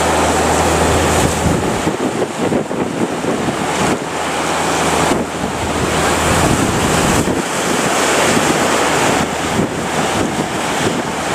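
Strong wind buffeting the microphone over the steady rush of breaking surf, with a low hum underneath that fades out about seven seconds in.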